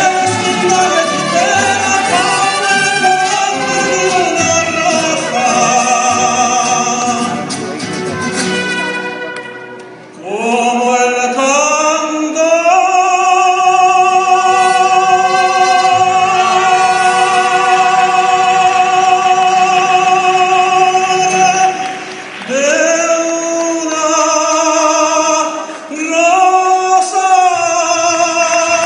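Male singer with a mariachi band. About ten seconds in, after a brief drop, his voice rises into one long high note held for about ten seconds, followed by two short closing phrases.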